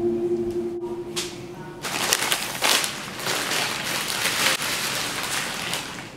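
Brown paper bag crinkling and rustling as it is handled and opened, a dense crackle with many quick crisp strokes starting about two seconds in.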